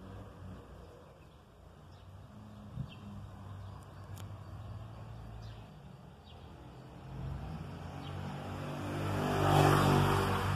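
A motor vehicle engine runs nearby with a low, steady hum. It grows louder from about seven seconds in, peaks near the end as the vehicle passes, then begins to fade.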